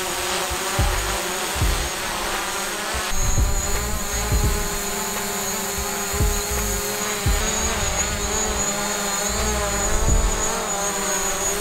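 DJI Mavic Pro quadcopter's four propellers buzzing in flight, the pitch wavering up and down as it manoeuvres overhead, with dull low thumps about once a second.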